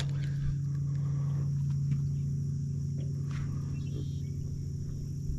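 A steady low mechanical hum, with a sharp click right at the start and a few faint knocks.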